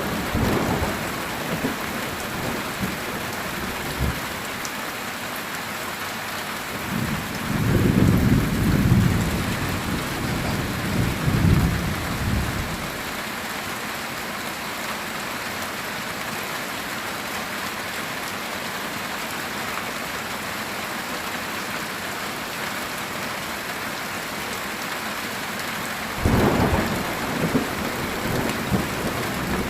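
Heavy rain falling steadily on a metal tin roof, with thunder rumbling: one rumble fades out in the first second, a long one comes about a quarter of the way in, and another starts near the end.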